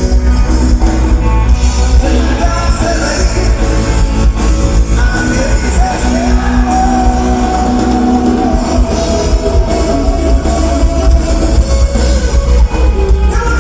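Live band playing loud amplified music with a singer holding long, wavering notes over a heavy, steady bass.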